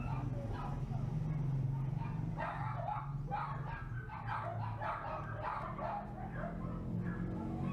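A dog barking and yelping in a quick run of short calls through the middle, over a steady low hum.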